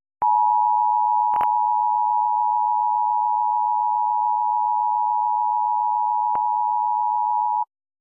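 Emergency Alert System two-tone attention signal, held steady for about seven seconds and then cutting off sharply, sounded for a Required Monthly Test. Two brief clicks fall over the tone, about a second in and near the end.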